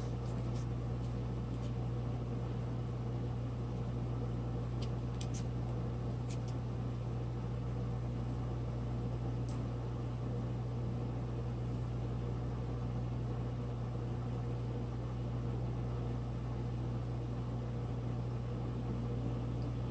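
A steady low machine hum at an even level, with a few faint light clicks about five to six seconds in and again near ten seconds.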